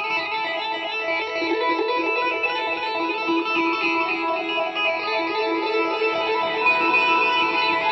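Background music: a guitar playing held, ringing notes, with no drums.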